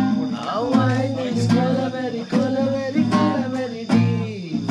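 Music: strummed acoustic guitar with a singing voice.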